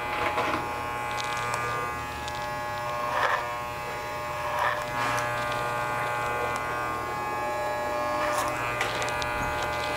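Electric hair clippers buzzing steadily as they cut a mannequin head's hair, with a few brief rasps a few seconds apart.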